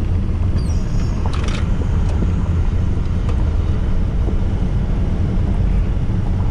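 Pickup truck (bakkie) driving along a farm road, heard from inside the cab: a steady low engine and tyre rumble, with a few faint rattles about a second in.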